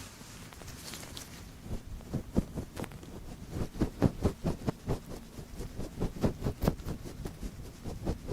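Close-up ASMR ear sounds: a quick, irregular run of soft taps and scrapes, several a second, after a brief hiss in the first second or so.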